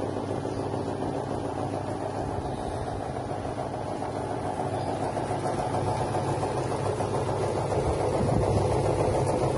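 Drum-type poultry plucker running empty: its electric motor spins the rubber-fingered plate at the bottom of the drum, with water spraying inside. A steady mechanical hum that grows a little louder near the end.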